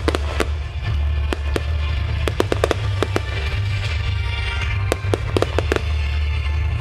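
Fireworks going off: a string of sharp cracks and pops from bursting shells, some single and some in quick crackling clusters, over music playing underneath.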